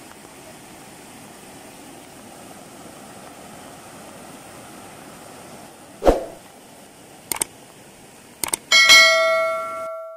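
Steady rush of noise from fast-flowing floodwater. About six seconds in, a subscribe-button sound effect comes in: a sharp click, two more short clicks, then a loud bell chime that rings for about a second and cuts off suddenly.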